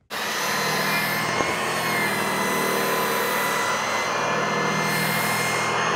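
Vevor electric metal polisher running steadily, its abrasive wheel grinding old paint off a 1979 Peterbilt 359 cab door down to bare metal. It makes a steady high whine over a grinding hiss.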